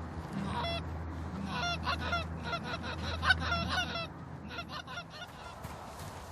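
Geese honking: many short honks in quick succession, thinning out after about four seconds, over a low steady rumble that stops about four seconds in.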